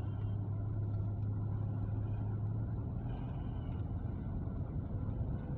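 Car engine and road noise heard from inside the cabin while driving slowly: a steady low hum that softens a little about halfway through.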